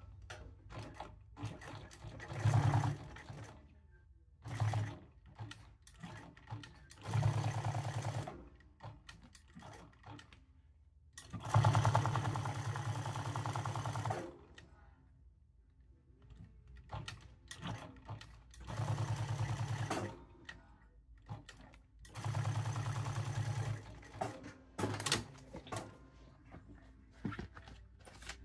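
Jack S5 post-bed industrial sewing machine stitching a leather patch onto a hat in short runs of one to three seconds. Between runs it stops, with small clicks and handling noises as the cap is turned under the needle.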